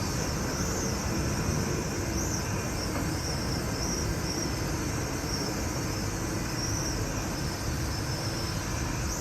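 Tower crane machinery running steadily as the crane slews, a continuous low rumble, with faint short high chirps recurring over it.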